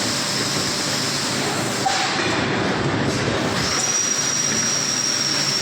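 Automatic PET bottle blow-moulding machine running: steady mechanical noise, with a brief tone about two seconds in and a thin high whistle that sets in just past halfway and holds.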